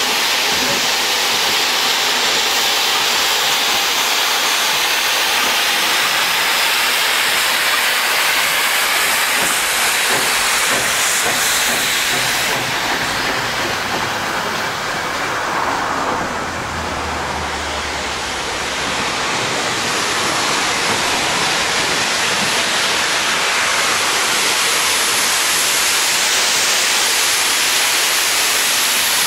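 Steam locomotive hissing steadily as steam blows off. There is a low rumble about halfway through.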